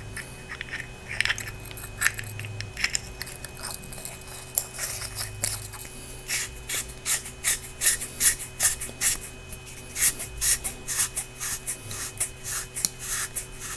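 Flashlight being reassembled: cells slid into the body tube and the threaded tail cap screwed back on, giving a run of short scrapes and clicks that come quickly from about six seconds in.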